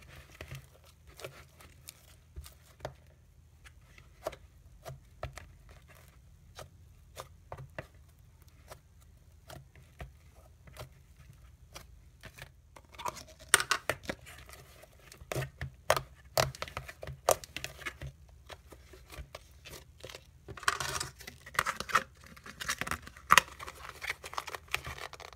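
Freshly activated white glue slime being stirred with a silicone spatula and then worked by hand, making scattered sticky clicks and pops. About halfway through these thicken into denser runs of crackling.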